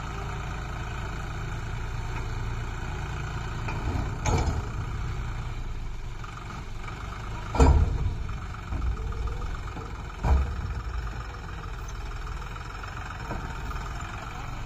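John Deere 5310 tractor's three-cylinder diesel engine running steadily under load while pulling a water tanker through mud. Three loud knocks stand out, about four, seven and a half, and ten seconds in.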